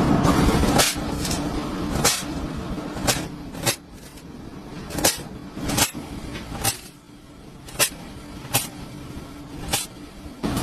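A series of sharp knocks or clicks, roughly one a second, over a steady machine drone that drops away after about a second and fades further near the middle.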